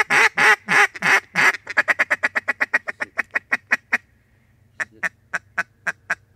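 Mallard duck call blown in a run of quacks: about six long, loud quacks, then a quicker string of shorter quacks, and after a short pause a string of short quacks at an even pace of about four a second.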